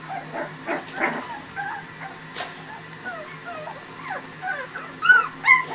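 Litter of 24-day-old Shar Pei puppies whimpering and squeaking in many short calls, with a couple of louder yelps near the end.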